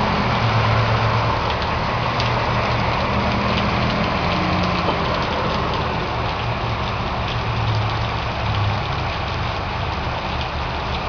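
Steady rain falling, with the low hum of a vehicle engine running, which fades about nine seconds in.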